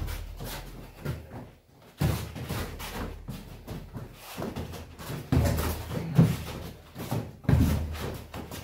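Boxing gloves landing on gloves, headgear and bodies during heavyweight sparring: an irregular run of slaps and thuds. A few heavier thumps stand out about two, five and seven and a half seconds in.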